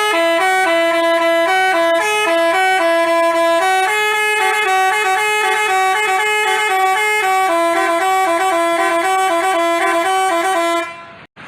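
Basuri telolet multi-tone bus horn playing a tune: several horn tones sound together and step from note to note, then stop suddenly near the end.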